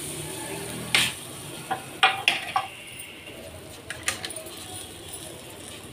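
Stainless steel cookware clinking and knocking as the tempering pan and spoon are handled over the rasam pot: a handful of sharp metal clinks, bunched about two seconds in and again about four seconds in.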